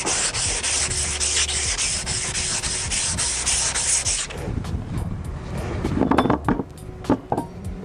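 400-grit emery tape pulled hard back and forth around a hardened-steel anchor winch shaft: rapid, even scrubbing strokes cleaning barnacles and grime off the end of the shaft. The scrubbing stops abruptly about four seconds in, and quieter knocks follow as the shaft is handled on the bench.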